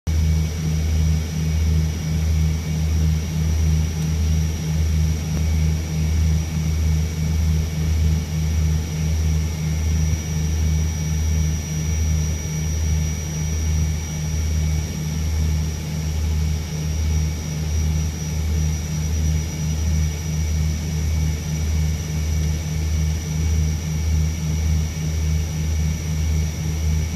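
Bombardier Dash 8 Q300's twin Pratt & Whitney Canada PW123 turboprops and propellers droning in the cockpit on final approach, a steady low hum with a regular pulsing beat and a faint steady high whine above it.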